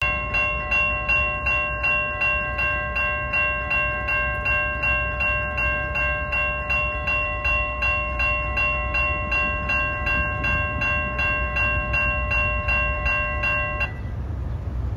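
Railroad grade-crossing warning bell ringing rapidly, about two and a half strokes a second. It stops suddenly near the end, once the crossing gates are down. A low rumble runs underneath.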